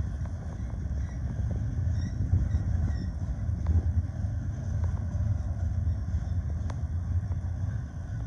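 Double-stack intermodal well cars of a freight train rolling past, a steady low rumble of steel wheels on rail, with one sharp click late on.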